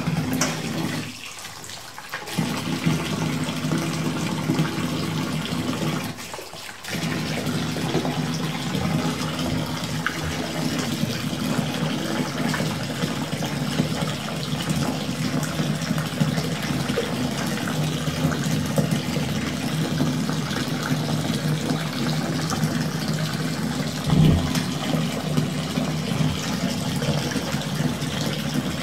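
Water gushing and splashing in a bathtub, with a steady low rushing underneath. The flow drops away briefly twice near the start, and there is one sharp thump about three-quarters of the way through.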